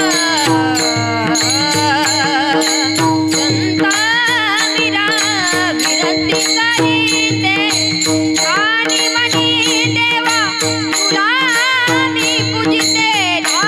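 Varkari kirtan music: a woman's voice sings a long ornamented melody with slides and wavering held notes, over a steady drone. Pakhawaj drum strokes and small hand cymbals keep a steady beat.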